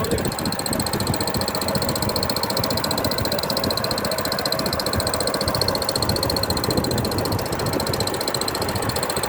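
Small fishing boat's engine running steadily at trolling speed, with a fast even pulse and a steady high whine.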